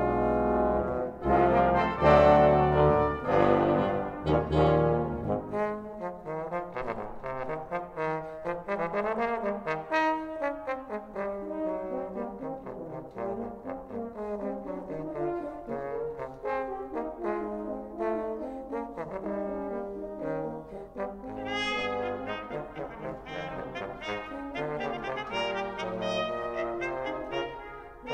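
Brass ensemble of trumpets, trombones, French horn and tuba playing, with the low brass sounding in full for about the first five seconds before dropping out. A lighter passage of quick, overlapping notes follows, and bright high trumpet notes come in about twenty-one seconds in.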